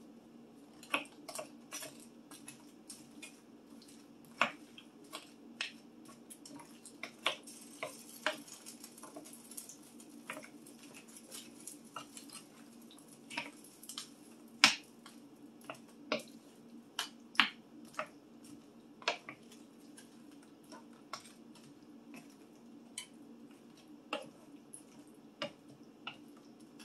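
A utensil tapping and clinking against a pan as a chicken and vegetable stir-fry is stirred, in scattered, irregular taps over a steady low hum.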